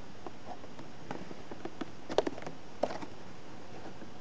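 Clear plastic blister packaging crinkling and clicking as it is handled and turned over, with a few sharper crackles about two seconds in and again a little later.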